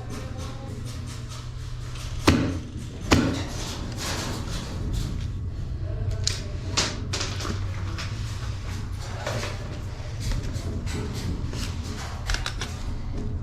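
Two sharp knocks about a second apart, then scattered light clicks and knocks over a steady low hum.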